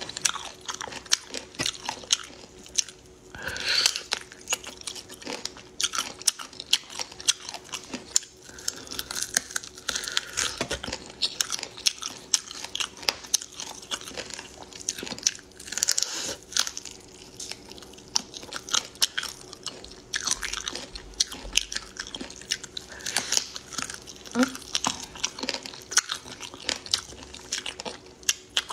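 A person gnawing and chewing spiced chicken feet close to the microphone, with many short bites, crunches and mouth clicks in quick succession.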